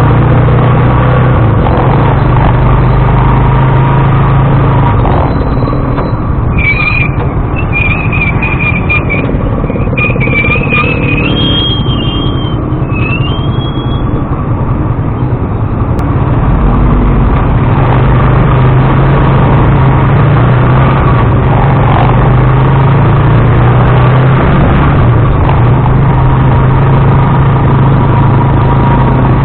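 Motorized tricycle engine running steadily while driving, a loud low hum with rough road and vibration noise. A wavering high-pitched tone comes in for several seconds from about six seconds in.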